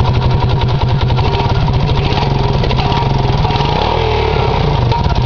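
Yamaha YTM225DX three-wheeler's single-cylinder four-stroke engine running steadily with even firing pulses on its first start after a rocker-arm replacement. The note drops a little about three seconds in.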